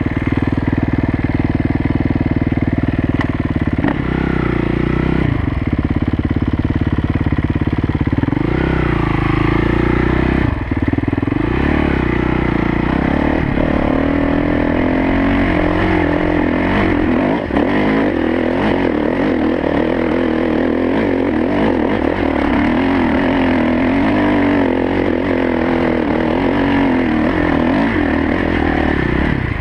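Kawasaki KX450F dirt bike's single-cylinder four-stroke engine running under way, its revs rising and falling with the throttle.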